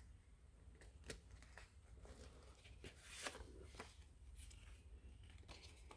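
Faint rustling and a few light ticks of paper and card being handled, as a paper envelope and small cards are moved about.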